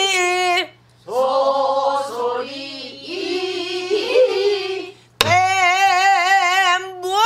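A woman singing pansori in long held phrases with a wide, wavering vibrato, pausing for breath twice. About five seconds in, one sharp stroke of the stick on a buk barrel drum marks the rhythm.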